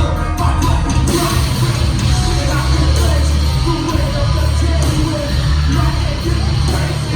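A live rock band playing loud, bass-heavy music, with a vocalist singing over it; the cymbals come in about a second in.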